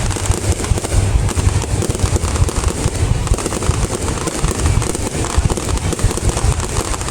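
Fireworks display: a dense, continuous run of bangs and crackling over a deep low rumble.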